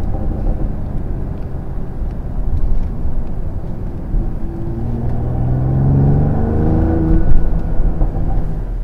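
Mercedes-AMG GLE 53's 3.0-litre six-cylinder engine heard from inside the cabin while driving. The engine note climbs in pitch as the car accelerates from about halfway through, then drops away just after a brief loud peak near the end.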